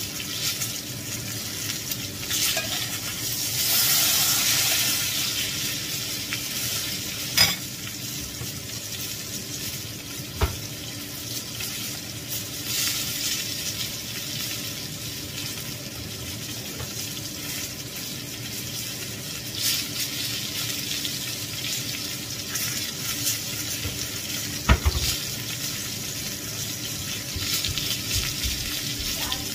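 Marinated wild boar meat frying in margarine in a cast-iron skillet, a steady sizzling hiss broken by three sharp clicks.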